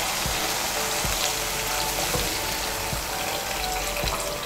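A spice paste sizzling in oil in a pan while hot water is poured in, the stream splashing into it and the frying hiss carrying on under the water.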